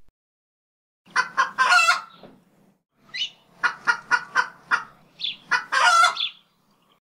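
Chicken clucking: quick runs of short clucks, ending in a longer drawn-out call.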